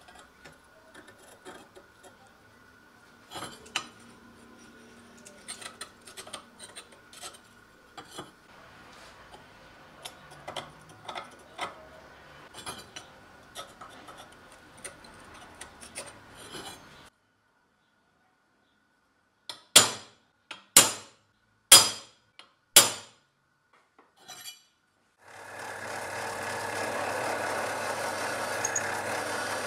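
Faint scratching and small clicks of a caliper jaw scribing lines on a steel plate, the knife blank cut from a seed-drill disc. After a short silence come four sharp knocks about a second apart, then a drill press starts and runs steadily, drilling into the steel plate.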